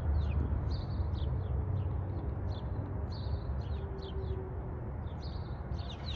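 Small birds chirping repeatedly, short quick notes several times a second, over a steady low rumble.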